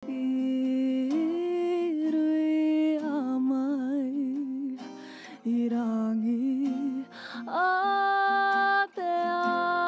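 Intro music: a solo voice singing or humming a slow melody of long held notes that slide up or down from one pitch to the next, with a wavering vibrato a few seconds in.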